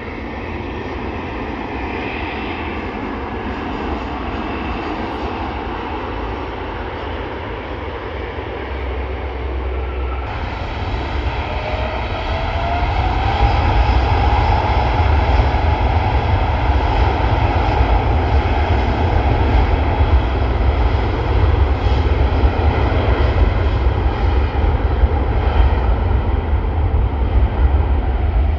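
Jet airliner engine noise, swelling about halfway through with a rising whine, then holding loud and steady with a deep rumble.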